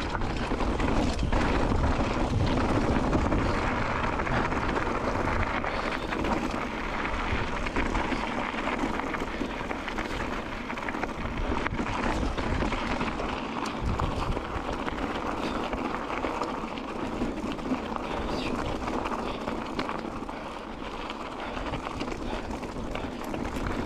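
Wind buffeting the microphone outdoors: a steady rushing noise with a low rumble that rises and falls a little but never stops.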